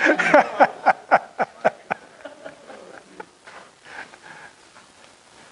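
A burst of hearty laughter, rapid 'ha-ha-ha' pulses about five a second, fading out after about two seconds.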